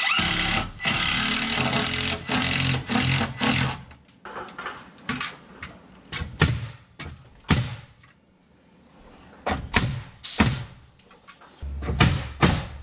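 A cordless drill running hard for the first few seconds, then scattered knocks and taps of framing work, with background music whose steady bass comes in near the end.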